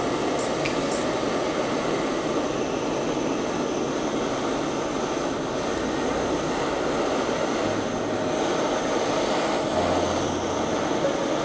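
Handheld butane gas torch burning with a steady, even flame roar that does not let up.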